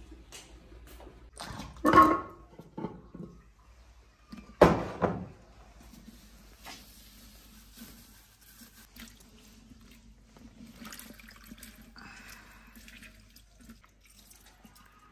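Two loud knocks about two and a half seconds apart, then water and brine splashing and dripping as a hand reaches into an earthenware pickle jar to lift out pickled chillies.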